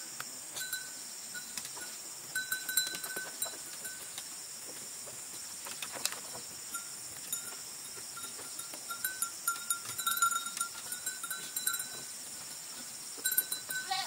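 Steady high-pitched drone of forest insects, with scattered light knocks and clinks of bamboo poles being handled and fitted into a frame, bunched about two seconds in and again in the last few seconds. A thin ringing tone comes and goes.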